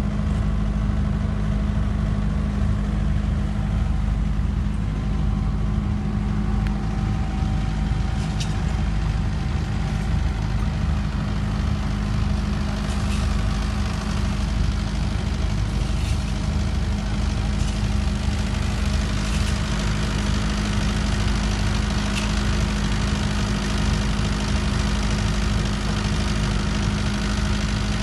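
A steady, unchanging low engine drone, like an engine running at constant speed, with a few faint ticks now and then.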